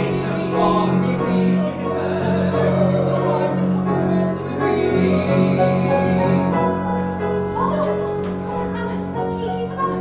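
Musical theatre song performed live: singers with instrumental accompaniment, holding long notes.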